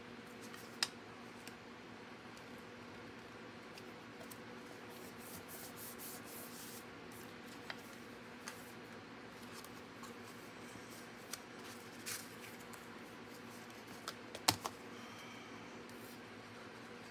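Cardstock panels being handled, folded and set down on a glass cutting mat: soft paper rustling with scattered light taps and clicks, the sharpest one near the end.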